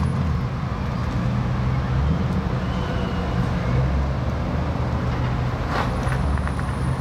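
An engine idling steadily as a low, even hum, with a few light taps near the end.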